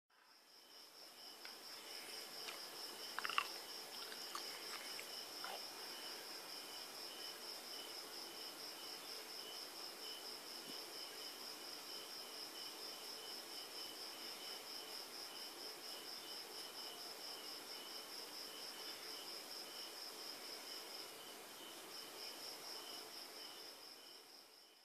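A cricket chirping steadily in the background, a high, rapidly pulsing trill that never stops. A few faint clicks and taps about three seconds in.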